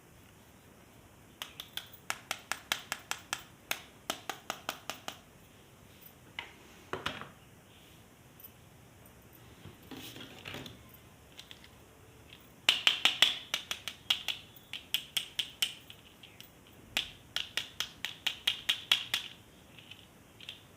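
Rapid, evenly spaced clicking at about six clicks a second, in three bursts of a few seconds each, with a couple of soft rustles between the bursts.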